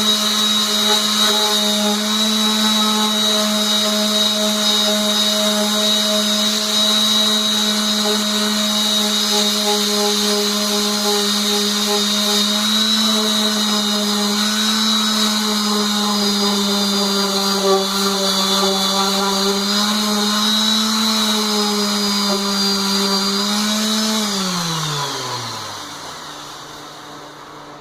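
Power sanding on a wood lathe: an electric motor runs with a steady whine, its pitch sagging slightly now and then under load. Near the end the motor winds down, the whine falling steeply in pitch and fading.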